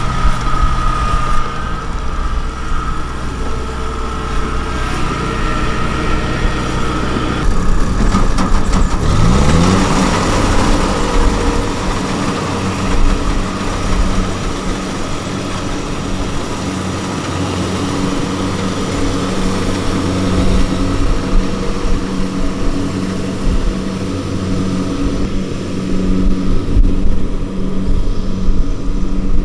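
Diesel engine of rice-harvesting machinery running steadily. The sound changes abruptly about seven seconds in, then the engine revs up with a rising pitch and holds at the higher speed.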